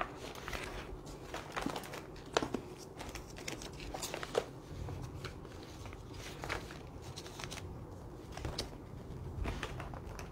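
Faint scattered clicks, knocks and rustles of someone handling things, with the sharpest clicks about two and four seconds in.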